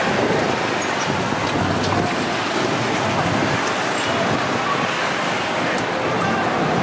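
Busy street traffic heard from an open electric sightseeing cart on the move: a steady rush of cars and motorbikes with some wind on the microphone.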